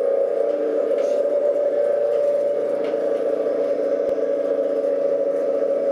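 Steady electrical hum and whir inside a Kobe Electric Railway train standing at a station platform, with no change in pitch or level.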